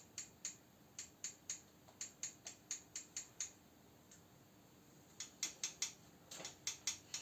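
Ratchet wrench clicking in short runs of sharp ticks, about three to four a second, with a pause in the middle, as bolts are turned.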